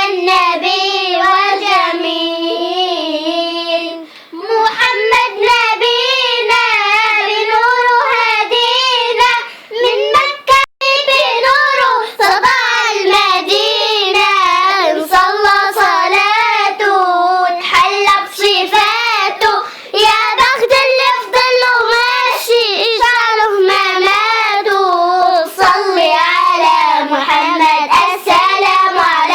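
A girl singing an Arabic nasheed in praise of the Prophet, unaccompanied, in a clear high voice with wavering vibrato and brief pauses for breath.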